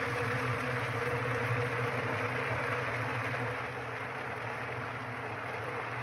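Kadıoğlu CKS90160D walnut hulling machine running with a steady low hum under a noisy hiss as green walnuts are tipped into its drum. The sound drops a little about three and a half seconds in.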